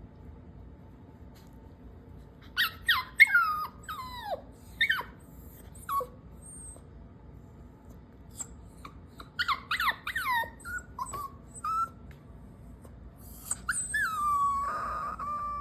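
A dog whining in short, high cries that fall steeply in pitch, in three bunches, the last drawn out into a longer whine; the sound of a scolded dog acting guilty.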